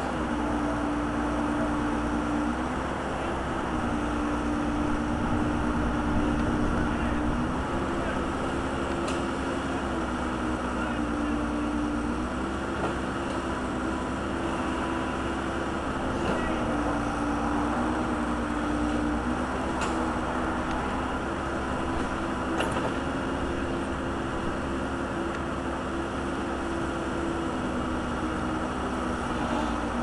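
Case backhoe engine running steadily while the boom digs, its pitch dipping and recovering slightly every few seconds as the hydraulics take load. A few faint clicks.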